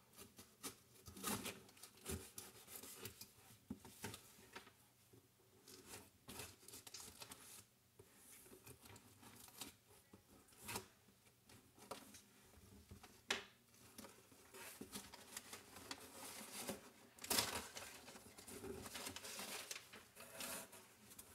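A mailed package being cut and torn open by hand with a knife: irregular scraping, tearing and crinkling of tape, cardboard and paper, with a louder burst of tearing noise late on.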